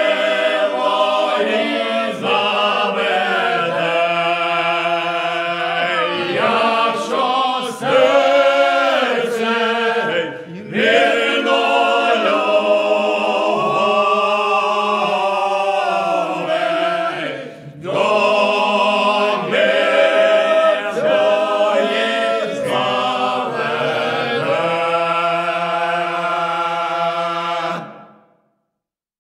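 Ukrainian village folk choir singing a lyrical song a cappella, voices sliding between notes. The singing breaks briefly twice for breath and closes on a long held chord that stops near the end.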